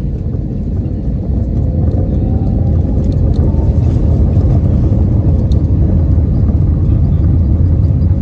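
Airbus A320 jet engines and airframe rumble heard from inside the passenger cabin while the airliner moves on the ground. The low rumble grows louder over the first few seconds, with a faint rising whine, then holds steady.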